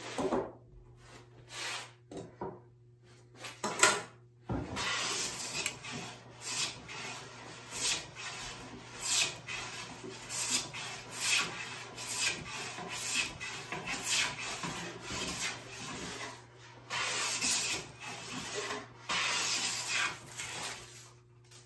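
Hand plane taking shavings along the edge of a pine board. After a few scattered scrapes, the strokes come regularly about one and a half a second from about four seconds in, with two longer strokes near the end.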